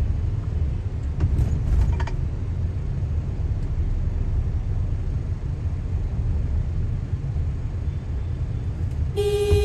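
Steady low rumble of a car's engine and tyres in slow city traffic, heard from inside the cabin. In the last half-second a vehicle horn starts honking.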